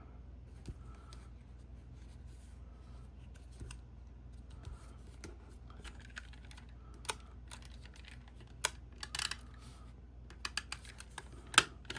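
Cardstock pieces being handled and pressed into place: scattered light taps, clicks and paper rustles, more frequent in the last few seconds, over a low steady hum.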